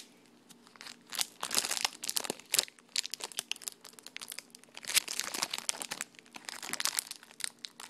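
Clear plastic wrapper of a cheese stick crinkling and tearing as it is peeled open by hand, in several bursts of crackling starting about a second in.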